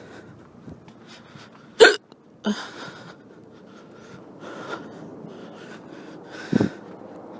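A woman's drunken hiccups: a few short, sudden hiccups, the loudest about two seconds in and another near the end, with breathing between them.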